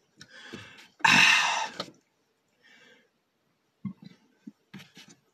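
A man's long, breathy exhale after a drink from a can, about a second in, followed by a few faint short sounds from his mouth and throat.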